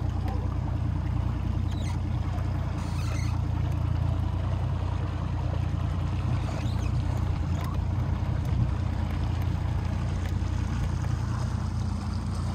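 Boat motor running at a steady speed, a low hum under a rushing wash of water.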